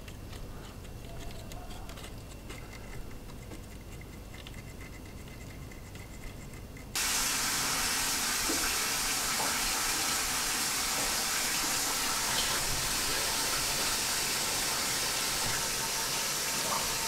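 Quiet room tone with a few faint ticks, then about seven seconds in a loud, steady hiss starts abruptly and holds evenly.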